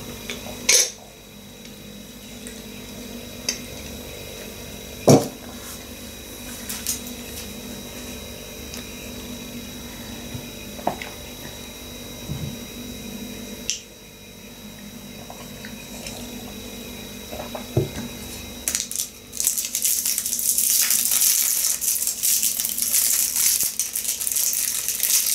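A few scattered clinks and knocks of a glass teapot and mug on a table, then, from about three-quarters of the way through, a sweet's wrapper crinkling loudly and continuously as it is unwrapped.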